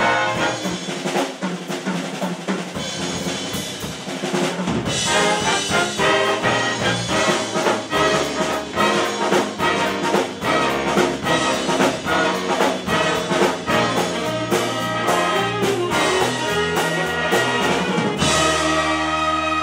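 A jazz big band playing live: trumpets and trombones with a drum kit, in full ensemble with many short, sharp accents. In the last second and a half the band holds a long closing chord.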